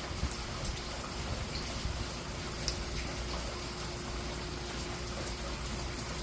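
Steady hiss of falling rain and running water, with scattered sharp drip ticks and a faint steady hum underneath.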